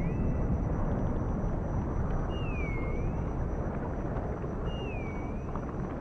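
Dolphin whistles over a steady low rushing noise: two whistles a couple of seconds apart, each dipping in pitch and rising again, with the tail of another at the very start and a few faint clicks near the end.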